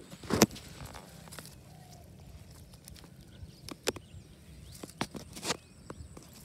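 A landed snakehead (murrel) slapping and thumping on dry grass as it is grabbed by hand and put into a mesh keep net. The sharp slaps come irregularly, the loudest about half a second in, over a low rustle of grass and netting.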